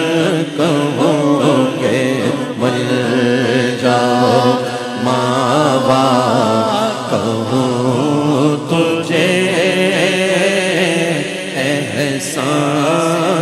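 Male voice singing an Urdu naat in a drawn-out, ornamented melody, the notes sliding and bending, with a steady low drone held beneath.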